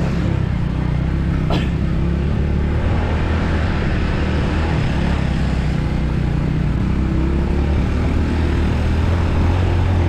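Small motorcycle's engine running steadily at low speed on a dirt track, heard from on the bike with wind and road noise over it. A single short click about one and a half seconds in.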